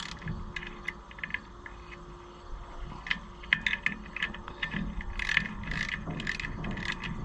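Wrenches working on steel hydraulic hose fittings as they are given their final tightening: irregular light metal clicks and ticks, coming more often in the second half.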